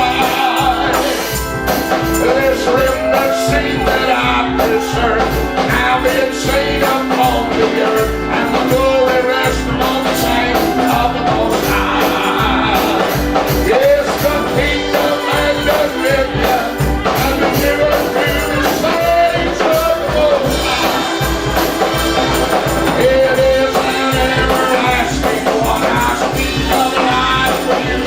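Live church praise music: singing over a band with a steady beat and tambourine.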